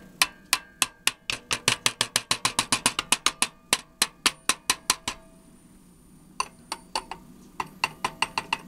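Rapid light taps of a screwdriver handle on the circuit boards of a 1981 Mettler electronic scale, a tap test for an intermittent connection. About six sharp taps a second for some five seconds, a short pause, then a sparser run of taps.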